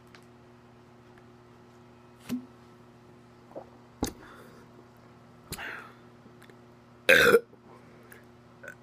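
A woman burps once, loudly, about seven seconds in, after gulping Coca-Cola. A few faint clicks and mouth sounds come before it.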